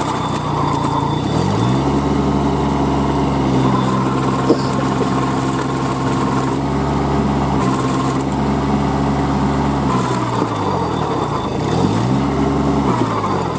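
Kubota B2441 compact tractor's diesel engine working hard under load as it drags its cage wheels and rotavator through deep mud. The throttle is opened about a second and a half in and held high, eased off around ten seconds, then opened again briefly before dropping near the end. A single short knock sounds about four seconds in.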